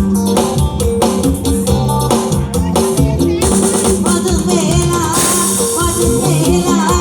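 Live Thai band music with a steady drum kit beat and bass line. A wavering, sliding melody line comes in about halfway through.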